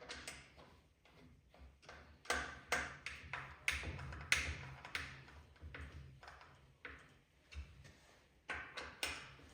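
Irregular light taps and knocks, a dozen or so, some with a short ring, over a faint low hum.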